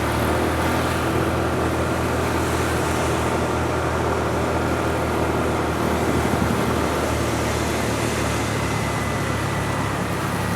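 Bus engine running steadily with an even low hum and a faint steady high whine; no telolet horn tune sounds.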